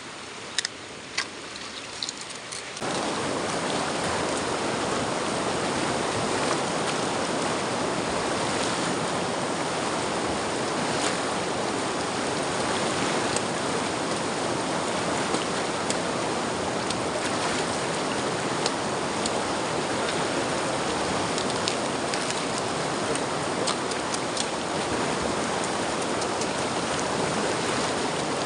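A few light clicks, then, about three seconds in, the steady, even rush of a river's flowing water starts abruptly and carries on unchanged.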